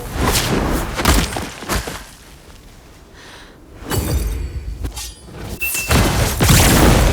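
Layered sound-design effects for animation: a run of sharp hits and sweeping whooshes, a quieter lull about two seconds in, then more impacts and a loud swelling whoosh near the end.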